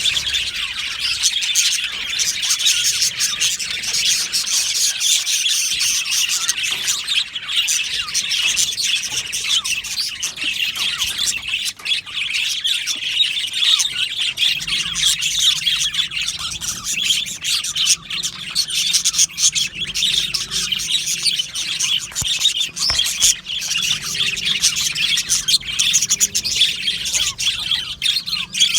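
A flock of budgerigars chirping and chattering all at once in a dense, continuous warble, with occasional squawks.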